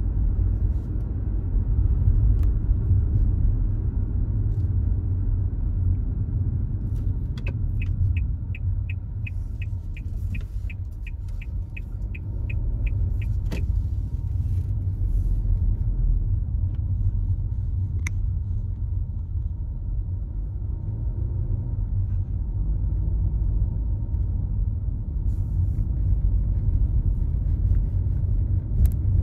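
Steady low road rumble of a car heard from inside the cabin while driving. Midway, a regular ticking, about three ticks a second, runs for some six seconds, with a few single clicks later.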